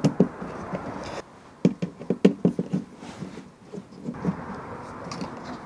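A Phillips screwdriver clicking and scraping on the small screws of a thermostat cover plate as they are backed out of an electric smoker's sheet-metal panel. A quick run of small metallic taps comes about two seconds in.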